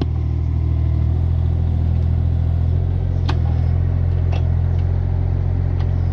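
Excavator engine running steadily under load while it pushes an old railroad tie out from under the rail, with a few sharp clicks about three, four and six seconds in.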